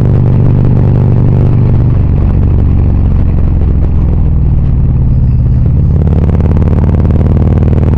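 Motorcycle engine running steadily at road speed. Its note shifts slightly about two seconds in and again near six seconds.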